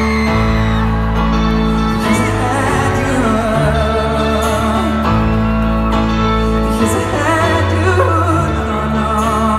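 Live pop music in an arena: a piano-led ballad with sustained low chords shifting every second or two and a wordless, wavering sung line over them.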